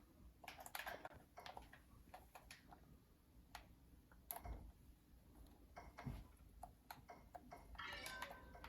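Faint, irregular clicks and light taps, a few a second, with a short cluster of rattly clicks near the end.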